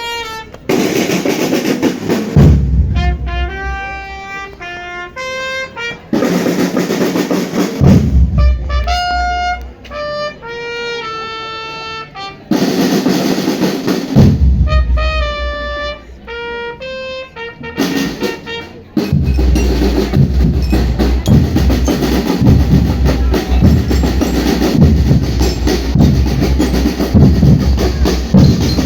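Marching band music: short melodic phrases of held notes alternate with loud drum breaks on snare and bass drums. About two-thirds of the way through, the drums take over and play on continuously.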